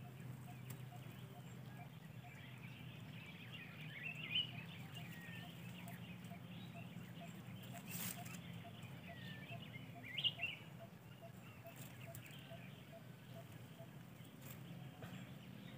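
Quiet forest ambience: scattered bird chirps, loudest about four and ten seconds in, over a soft note repeated evenly about twice a second. A single faint click near the middle.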